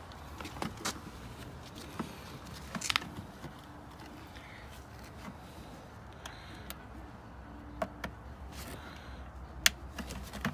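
Scattered clicks and knocks of a plastic interior trim panel being handled and pressed into its clips, over a low steady hum.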